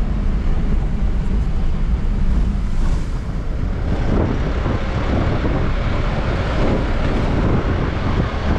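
Goods truck running at road speed, heard from inside the cab: a steady low engine and road rumble with wind noise, the hiss growing louder about four seconds in.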